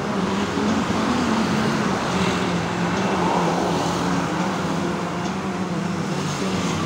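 Steady road traffic noise, with the low hum of vehicle engines running.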